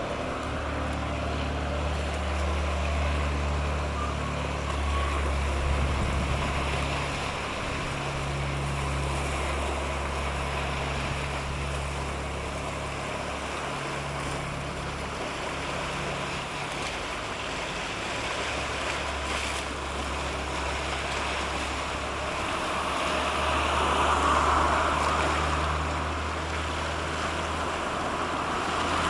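Low, steady drone of a small boat's engine crossing the strait, swelling and fading slightly, over water washing against the shore and wind on the microphone. A rush of water grows louder near the end.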